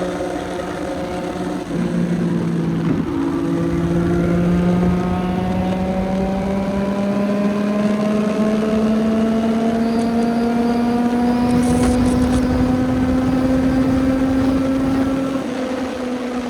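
CFMOTO 675NK's 675 cc inline-three engine running under load as the bike is ridden. Its pitch drops once about two seconds in, then climbs slowly and steadily for more than ten seconds before easing off near the end.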